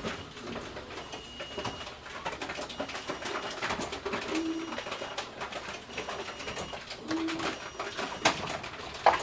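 Grocery store bottle return machine running with a steady clatter of clicks and knocks from containers moving through it. A short low hum sounds twice, about three seconds apart, and two sharp loud clacks come near the end.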